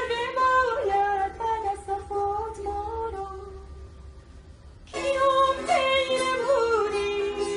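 A woman singing a slow Persian vocal melody with long, ornamented held notes. The singing drops to a quieter lull about three seconds in and comes back strongly about five seconds in.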